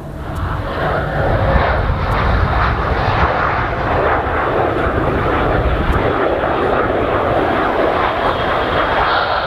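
British Airways Boeing 787-8's jet engines running, a loud, even engine noise that begins abruptly and swells over the first second or so, then holds steady.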